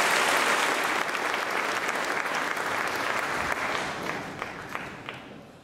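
Audience applauding, the clapping steady at first and then thinning and fading away over the last second or two.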